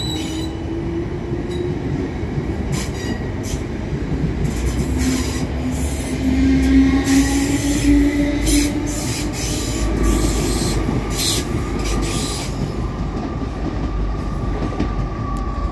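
British Rail Class 455 electric multiple unit pulling away and accelerating: a steady traction whine rising slowly in pitch over the rumble of the wheels, with a string of clacks from the wheels on the track as the carriages pass.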